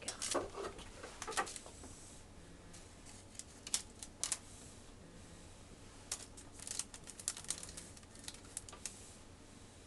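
Scattered light clicks and taps in small clusters as fingers pick small squares of cheese off a wooden cutting board and set them down on a parchment-paper tray, the busiest run coming in the second half.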